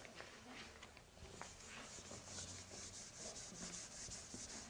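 Very faint scratching and rubbing over quiet room tone, with one light tick about a second and a half in.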